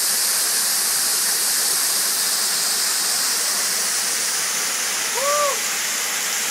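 Waterfall rushing steadily, an even hiss of falling water. About five seconds in, a brief call rises and falls once over it.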